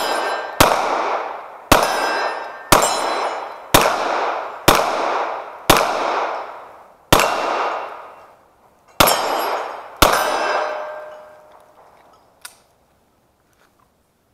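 9mm pistol firing nine shots, about one a second with a couple of slightly longer pauses, each shot followed by a ringing decay that carries a clear metallic tone, as of steel targets being hit. The shooting stops about ten seconds in, followed by a faint click.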